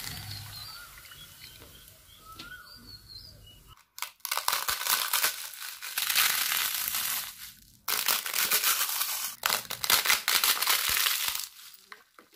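Fried rice papads crunching and crackling as they are crushed between the hands, in three long spells starting about four seconds in; the sharp crackle is the sign that they are fried crisp.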